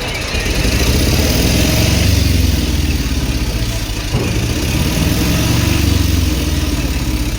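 A large vehicle engine running close by, its low rumble growing about half a second in, with a brief break around four seconds in.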